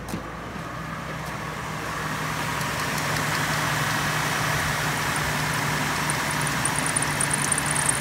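A 2003 Chevrolet Trailblazer's 4.2-litre six-cylinder engine idling, growing louder, with a thin high-pitched squeal from the belt drive coming in near the end. The squeal comes from a bad bearing in an auxiliary belt pulley, not the newly replaced water pump.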